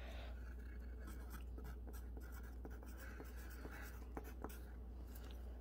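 Pencil writing on a sheet of paper laid on a wooden table: faint, intermittent scratching of the graphite with small ticks from the strokes, over a steady low hum.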